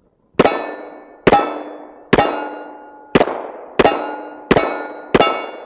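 Seven shots from a Springfield Armory 1911 TRP .45 pistol, fired at a steady pace of about one a second. Each shot is followed by the ringing of a hit steel target.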